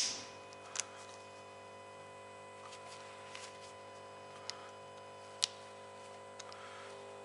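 A sharp click at the start, then a few faint, scattered clicks and taps of hands working the locking clip of a plastic wiring connector loose, over a steady background hum.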